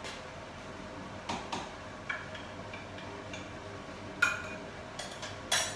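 Metal spoon clinking against a cup while stirring custard powder into milk: a few scattered sharp clinks and taps, the loudest a ringing clink about four seconds in, and a quick cluster of taps near the end.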